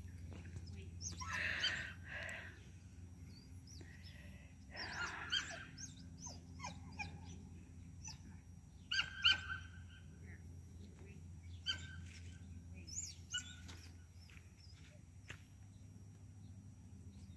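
Birds chirping and calling in short, scattered notes, over a steady low background hum.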